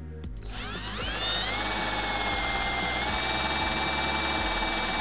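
Cordless drill spinning up about half a second in, then running steadily with a high whine as its twist bit bores through a white plastic sheet, powered by a freshly swapped battery.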